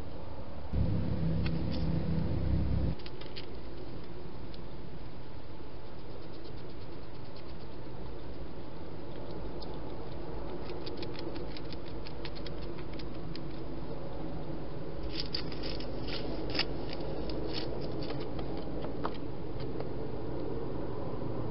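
Wild hedgehog eating at a feeding station: runs of small, sharp crunching clicks as it chews dry food, densest a little after the middle, over a steady camera hiss. A low hum lasts for about two seconds near the start.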